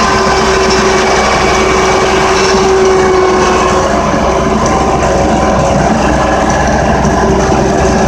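Engine of a snow-plowing machine running steadily under load as it drives across the lot, with a steady whine over the engine note.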